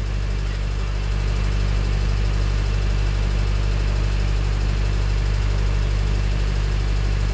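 Steady low hum of a boat's motor running at idle, growing slightly louder about a second in.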